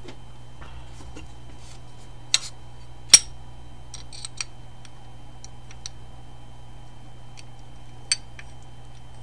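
Brake lever and pivot pin clicking against a motorcycle brake master cylinder as they are handled and fitted: a handful of sharp metal clicks and taps, the loudest about three seconds in, over a steady low hum.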